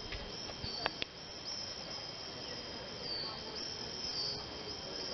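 Common swifts screaming overhead: repeated short, high-pitched gliding screams over a steady outdoor background, with a couple of clicks about a second in.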